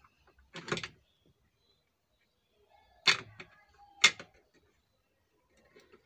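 Three short, sharp clicks and knocks of hand tools against the amplifier's circuit board and workbench while a resistor is being desoldered. There is a lighter knock under a second in, then two louder ones about a second apart.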